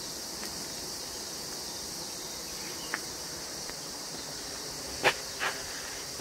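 Steady high-pitched drone of insects from the surrounding forest, with a few short sharp knocks, one about three seconds in and the loudest two near the five-second mark.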